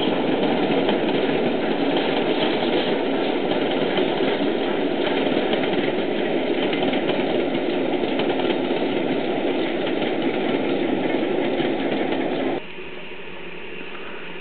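A passing train's steady rumble, with no distinct beats or tones. It drops abruptly about twelve and a half seconds in to a much quieter steady noise.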